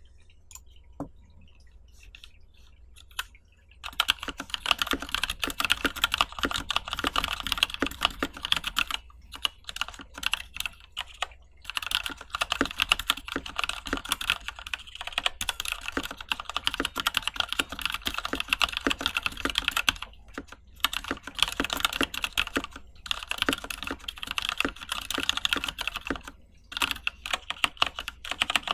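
Typing on an IC Kira mechanical keyboard with stock, unlubed Novelkeys Cream linear switches in a stainless steel plate, under JTK Hana keycaps: a dense, fast clatter of keystrokes. A few single key clicks come first, then steady fast typing starts about four seconds in and stops briefly a few times.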